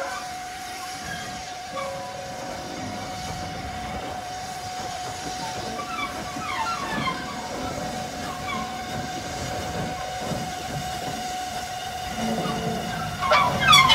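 Steam colliery tank engine No. 29 working slowly through the yard: a steady high tone runs under a low rumble, and the sound grows louder and busier near the end.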